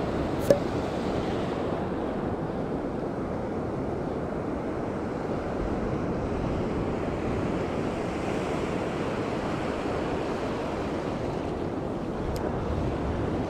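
Ocean surf washing over a shallow sand beach, a steady rushing with wind on the microphone. A single sharp click about half a second in.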